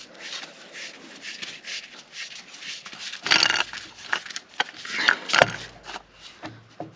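Scraping and rubbing as a tractor tie rod end is worked into its steering arm by hand, with a few short metal clinks and knocks, the sharpest about five seconds in.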